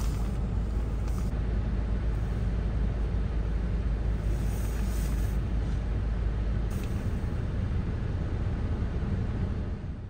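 Steady low rumble of an idling vehicle engine, heard from inside the cabin. The deepest part of the rumble drops away about two-thirds of the way through.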